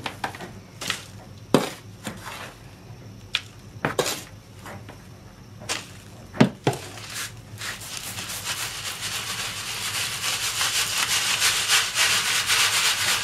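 Old sand being sieved through a round mesh sieve into a wheelbarrow. At first there are scattered scrapes and knocks from a brush and scraper working the sand. From about halfway there is a fast, steady rasping hiss as the sieve is shaken and sand and pebbles rub across the mesh, growing louder toward the end.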